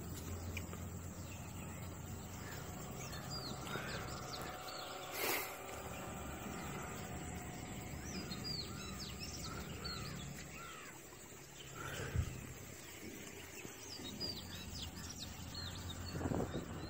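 Birds chirping and calling in short repeated notes over a steady low hum of outdoor background noise, with a sharp knock about five seconds in and another about twelve seconds in.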